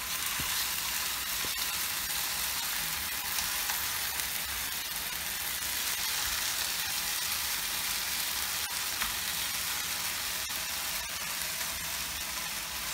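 Sauce-glazed chicken breasts sizzling steadily in an oiled frying pan, with a few faint clicks of a fork against the pan.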